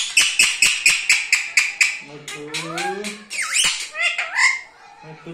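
Indian ringneck parakeet giving a fast string of about ten shrill squawks, roughly five a second, then a short stretch of voice-like chatter with rising pitch and a few more gliding calls.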